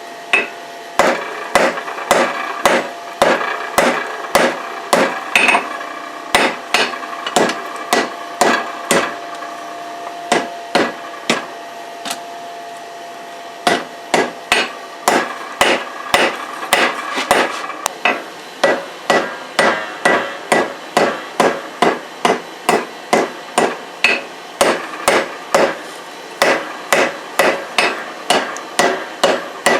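Hammer blows on hot leaf-spring steel over an anvil, drawing out a knife blade: steady, evenly spaced strikes about two a second, each with a ringing note. The hammering pauses briefly about twelve seconds in, then resumes and quickens near the end.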